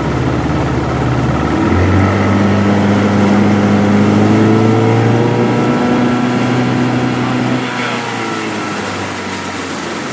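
Jon boat's outboard motor running under way. About two seconds in it is throttled up and jumps quickly to a higher, louder, steady speed, then near the end it is throttled back and drops in pitch and loudness. The quick jump fits a motor that takes off as soon as any throttle is given.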